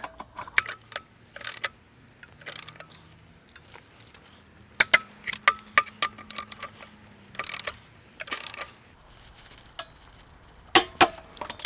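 Click-type torque wrench ratcheting in short bursts as spare-tire lug nuts are run down to 90 ft-lb, with a sharp click near the end as the wrench reaches its set torque.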